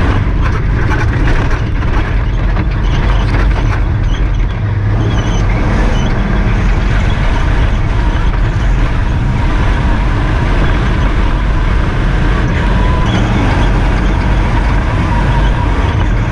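Loud cabin noise of the MINI John Cooper Works Buggy rally car driven at speed on a rough gravel track: its engine, drivetrain and tyre noise, with a rapid clatter of knocks and rattles over the first four or five seconds that then settles into a steady run.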